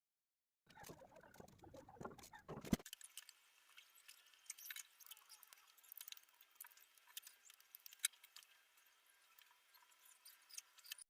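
Faint rustling and scattered light clicks, with a denser stretch of rustling in the first few seconds.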